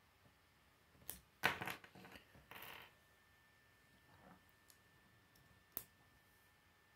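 Plastic K'nex pieces clicking and clattering as they are handled and snapped together, loudest about a second and a half in, with a single sharp click near the end.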